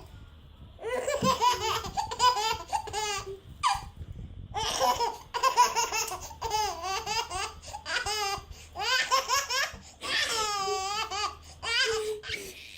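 A baby laughing in repeated high-pitched bouts of giggling, with short pauses for breath between them.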